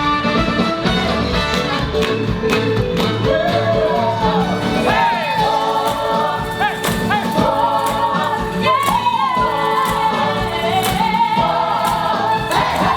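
Music: a song with singing voices over instruments, the sung lines gliding and bending in pitch.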